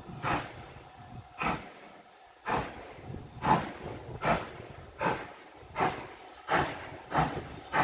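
Steam locomotive starting a train away, its exhaust beats sharp and distinct and quickening from about one a second to nearly two a second as it gathers speed.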